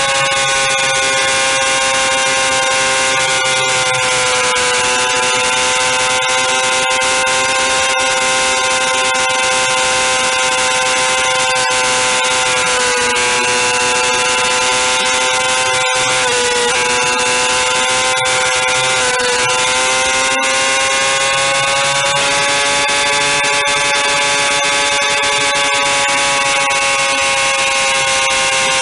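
Police motorcycle engine running at high, steady revs as the bike cruises at speed, giving a constant high-pitched drone that dips briefly in pitch a few times in the middle.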